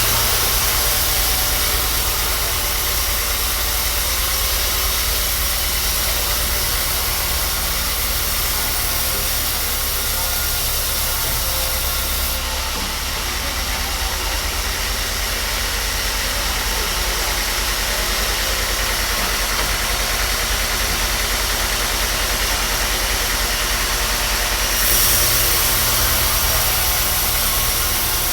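A machine motor running steadily with a low hum and a hiss; the hiss drops about twelve seconds in and comes back near the end.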